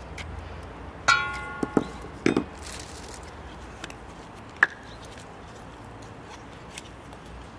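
A spoon knocking against an enamel bowl while spices go in. One ringing metallic clink about a second in, a few duller knocks just after, and one more sharp click a few seconds later.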